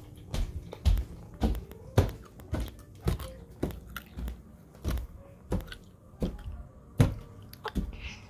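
Footsteps on a wooden floor, an even walking pace of about two steps a second.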